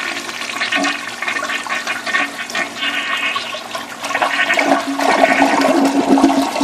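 Briggs Forward trap toilet flushing with five balled-up paper towels in the bowl: a continuous rush of water that grows louder in the last couple of seconds, then eases off.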